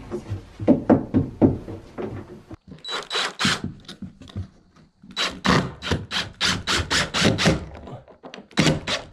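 A few knocks as a board is fitted, then a DeWalt cordless impact driver driving screws into pine shiplap in a series of short bursts.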